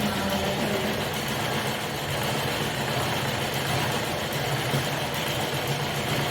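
Electric sewing machine running steadily, its motor giving a continuous low hum.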